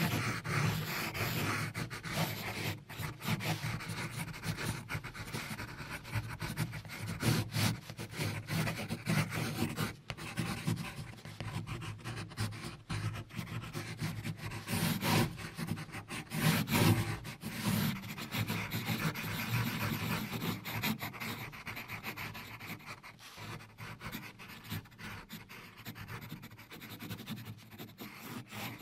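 Graphite pencil scratching and rubbing across textured drawing paper in uneven back-and-forth shading strokes.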